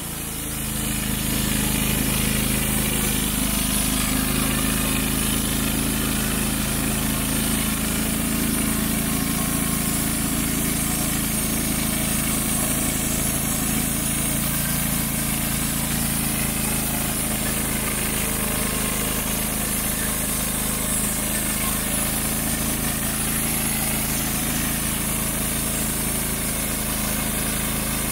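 Wood-Mizer LT35HD portable band sawmill running steadily under load as its saw head cuts through a red oak log. The sound swells over the first couple of seconds, then holds even.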